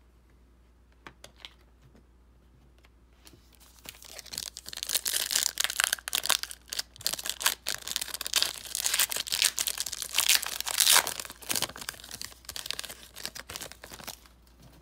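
Trading-card pack wrapper being torn open and crinkled by hand: a few light clicks, then from about four seconds in a dense, crackling run of tearing and crinkling that lasts some ten seconds.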